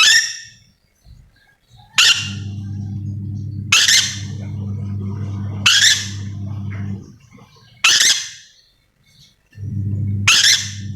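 Nuri dora (ornate lorikeet) giving its loud, shrill screeching call, six short screeches about two seconds apart. A steady low hum runs underneath, dropping out for about a second twice.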